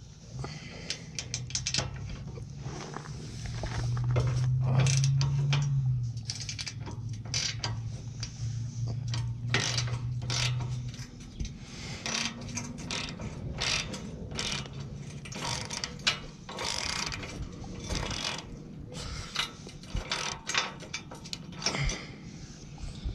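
Hand ratchet clicking in quick runs as a bolt is worked loose from a bumper guard bracket, its nut held with a wrench. A low steady hum sits underneath for about the first half, loudest around four to six seconds in.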